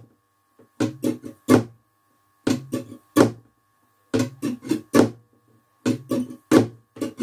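Flamenco guitar strummed in a rumba pattern, in about four short groups of strokes with brief pauses between them. The upstrokes are accented with a golpe, a tap on the guitar's wooden top.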